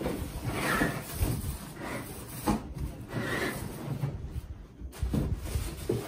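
Cardboard packing being handled and slid out of a box: irregular scraping and rustling with a few knocks.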